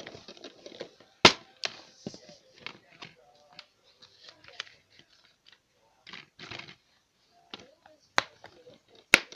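Plastic DVD case being handled: a string of sharp clicks and knocks with rustling between them, the loudest clicks about a second in and near the end.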